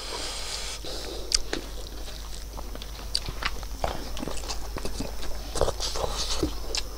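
A man chewing a mouthful of rice and buffalo innards curry, close to the microphone: irregular smacks and sharp little clicks from the mouth, several a second.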